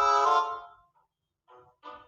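Background music: a reedy harmonica-like chord held for about half a second at the start, then a pause with a few short notes near the end.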